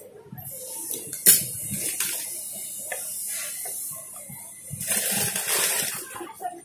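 Cloth rustling as hands turn, fold and scrunch pieces of cotton fabric on a sewing table, with a sharp click about a second in and a louder stretch of rustling near the end.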